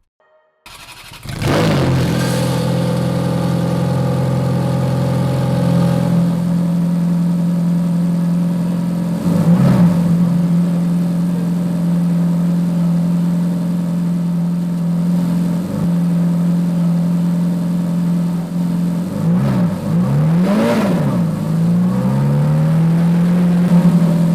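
Ferrari engine starting up and settling into a steady idle. It is blipped on the throttle once near the middle and in a quick run of revs near the end, each time rising and falling back to idle.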